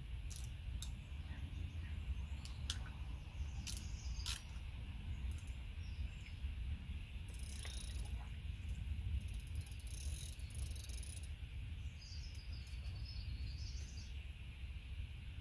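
Lakeside ambience with a steady low rumble and birds chirping. Several sharp clicks in the first few seconds come from handling the fishing rod and reel, and water sloshes around chest waders twice as the angler wades through the shallows.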